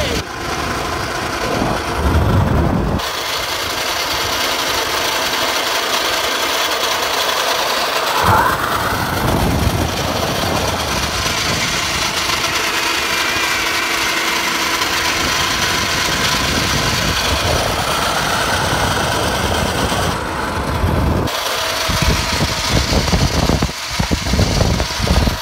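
Zipline trolley running fast along its steel cable, a loud steady mechanical rush, with wind buffeting the microphone in gusts.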